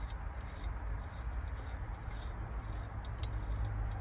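Faint, irregular scratching and rustling from hands at work, a few soft scrapes a second, over a steady low rumble.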